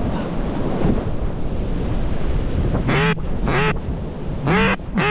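Wind buffeting the microphone, then a run of about four loud, short duck quacks in the last two seconds, each call arching in pitch.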